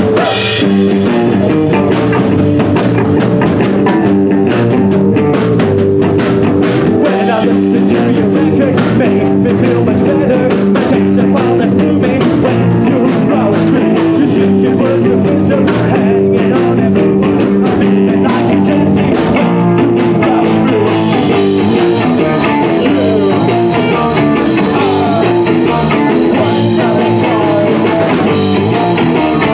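Live rock band playing loud and without a break: electric guitar over a drum kit. The cymbals grow brighter and busier about two-thirds of the way through.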